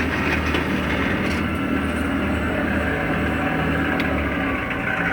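Clausing 5913 metal lathe running steadily in back gear, its single-phase motor and reduction gearing turning the spindle at low speed, with a steady low hum.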